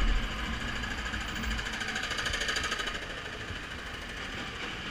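Motorcycle engine running steadily with a fast, even pulse, heard from on the bike, over a steady rush of road noise.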